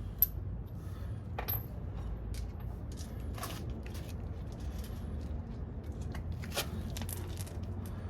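Small metal hardware and tools being handled: scattered clicks and clinks, with two short ringing metal pings in the first two seconds, over a steady low hum.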